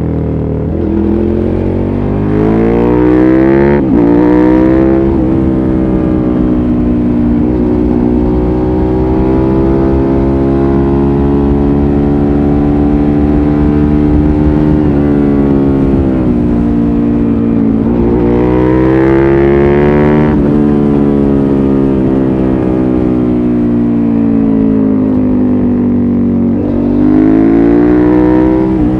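Suzuki SV650S's V-twin engine through a LeoVince exhaust with its dB-killer fitted, under way: the revs climb and drop sharply at a gear change about four seconds in, then hold fairly steady for a long stretch. The revs climb again and drop at further shifts about twenty seconds in and near the end.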